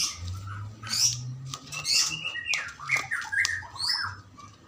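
Bird calls: a busy run of short chirps and squawks, several sliding up or down in pitch, with a few sharp clicks among them.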